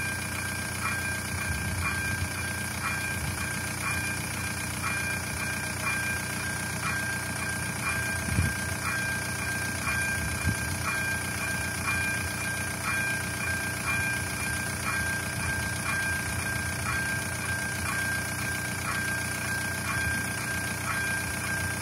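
Level-crossing warning bell ringing, a steady electronic ding repeating about once a second while the barriers are down. A car engine idles underneath.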